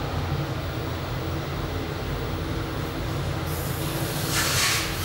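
Steady low rumble and hum inside a ThyssenKrupp machine-room-less traction elevator car while it travels between floors. A loud hiss rises about three and a half seconds in and peaks near the end.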